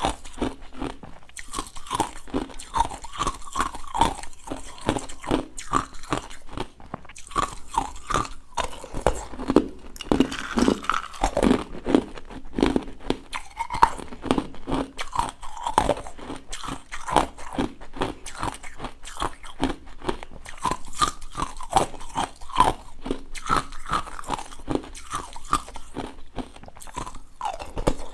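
Crunching and chewing of hard purple ice balls, a rapid run of sharp crunches bite after bite, picked up close by a clip-on microphone.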